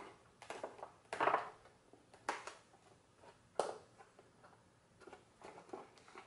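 Plastic clicks and knocks of a Lexus GS300 headlight lens being test-fitted onto its housing by hand: a handful of irregular taps about a second apart, the busiest a little over a second in.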